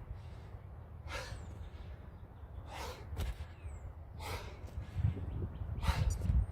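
A man breathing hard from exertion: about four heavy, forceful breaths, one every second and a half or so. Low thuds come in near the end.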